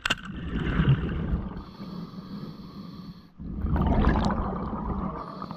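Scuba diver breathing through a regulator underwater, heard from a camera housing: two long breaths with bubbling, the second starting about three and a half seconds in.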